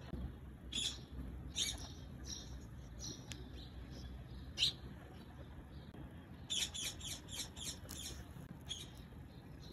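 A clear plastic henna cone crinkles and crackles as it is rolled, pressed along its seam and twisted tight at the tip. The sound is a string of short, sharp crackles, with a quick run of them about two-thirds of the way through.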